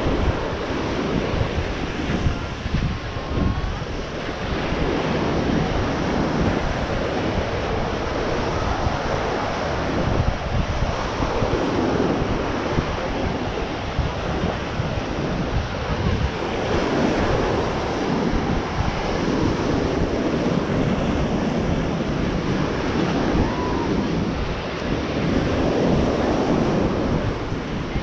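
Ocean surf washing onto a sandy beach, swelling and easing several times, over wind buffeting the microphone.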